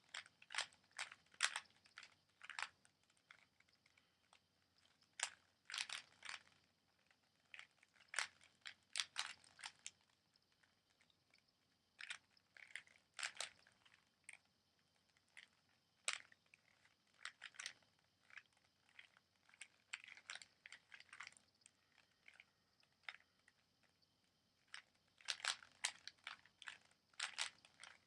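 Rubik's Cube being speed-solved by hand: quick runs of plastic clicks as the layers are turned, in bursts of a second or two broken by short pauses.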